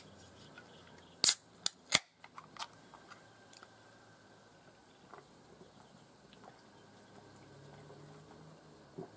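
Aluminium lager can opened by its pull tab: three sharp cracks in quick succession about a second in, followed by a few lighter clicks.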